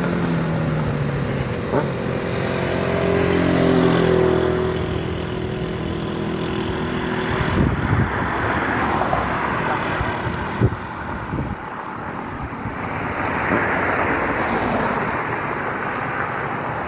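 Honda CBR1000RR's inline-four engine moving away after a flyby, its pitch falling as it fades over the first seven seconds or so. Then traffic noise with a few sharp knocks.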